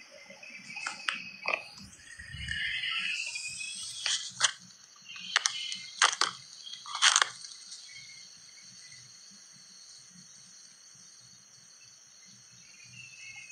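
Handling noise of a phone's microphone as the phone is moved: a rustle and a string of sharp taps and knocks in the first seven or so seconds, then only a faint steady high hiss.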